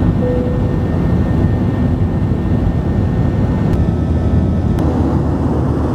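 Airliner's turbofan jet engines heard from inside the cabin during takeoff and climb-out: a loud, steady low rush of engine noise.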